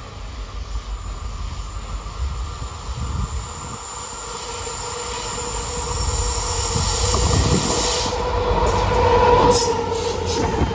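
A train passing close by, its rumble growing louder over the first several seconds, with a steady wheel squeal and a few sharp clanks near the end.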